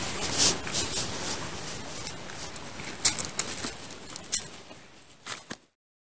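Rustling with a few sharp crackles in dry leaf litter, fading out to silence shortly before the end.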